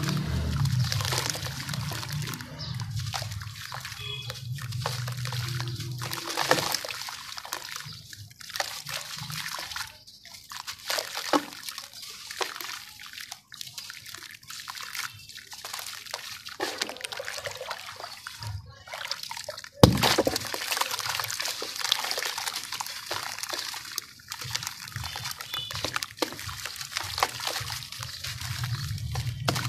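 Dry sand and cement lumps crumbled and crushed by hand, the gritty powder pattering and pouring into a tub of water with wet sloshing and splashing. One sharp crack stands out about two-thirds of the way in.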